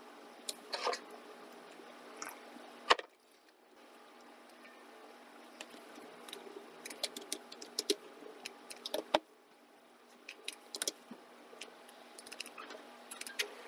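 Computer keyboard typing in short scattered runs of keystrokes, with two sharper, louder clicks about three seconds in and about nine seconds in, over a faint steady hum.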